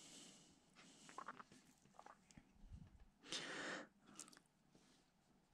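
Faint crinkling and rustling of a clear plastic transfer-tape sheet handled and pressed by hand, with a louder rustle about three and a half seconds in.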